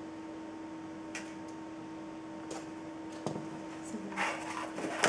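A metal spoon scooping powdered stock from a tin into a plastic tub on a kitchen scale: a few light clicks, then scraping and clinking near the end with one sharp click. A steady low hum runs underneath.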